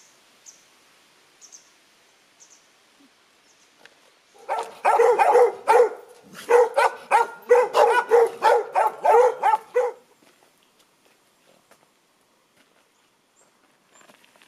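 A dog barking: a quick run of barks, several a second, for about five seconds, starting some four and a half seconds in.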